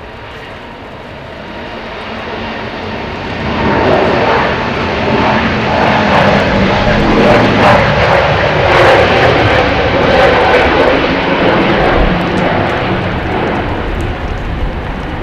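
Airbus A320neo's Pratt & Whitney geared turbofans at takeoff thrust, growing loud about three seconds in, then fading with a falling pitch as the jet goes past.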